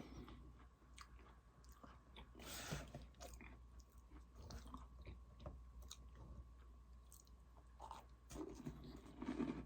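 A person chewing and biting into Oreo cookies up close, with scattered crisp crunches: a louder crunch about two and a half seconds in and another cluster near the end.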